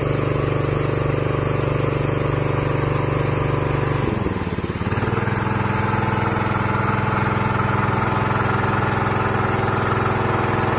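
Small engine of a Hummax T-Rex cultivator running steadily while it drives a mounted spray pump. The note dips briefly about four seconds in, then settles into steady running again.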